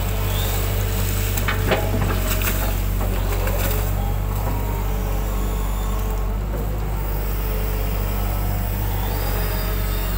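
Hitachi hydraulic excavator's diesel engine running steadily as the boom swings and the bucket is lowered, with a sharp knock a little under two seconds in.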